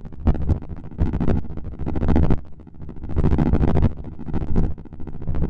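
Synthesized helicopter sound from the Cobra 1 software synth: an uneven, pulsing rotor chop, mostly low in pitch, that swells and dips in loudness.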